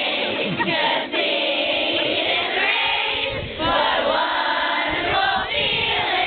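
A group of voices singing or chanting together, with many pitches overlapping and short breaks between phrases.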